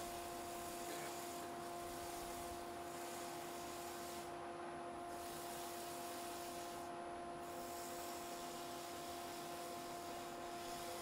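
Sandpaper hissing against a wooden platter spinning on a lathe, over a steady hum from the lathe and dust extractor. The hiss drops out briefly twice.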